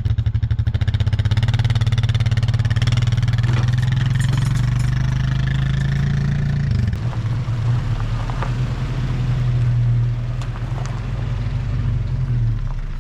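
Four-wheeler (ATV) engine running just after starting. Its note drops about seven seconds in, and it dies away near the end.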